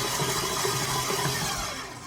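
Electric mixer motor running steadily, mixing cookie dough; the sound dies down near the end.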